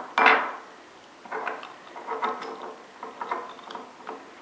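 Metal mounting bracket and its pin handled and fitted onto the rod end of a linear actuator: a sharp knock just after the start, then a scatter of lighter clicks and taps.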